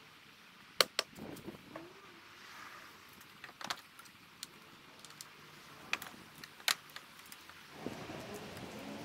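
Sharp clicks and clacks of a black plastic engine housing and nearby metal parts being handled and fitted onto a car engine by hand, with about five louder knocks spread through.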